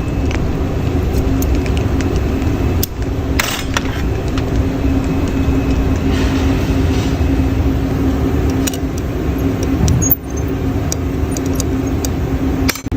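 Steady low machine hum and rumble, like a furnace or torch blower running, with light metallic or glass clinks now and then. The sound drops out briefly about three seconds in, about ten seconds in and near the end.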